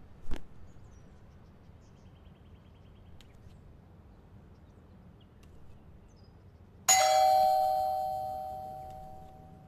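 A short soft thump, then near the end a single loud bell-like metallic ding that rings on and dies away over about two and a half seconds.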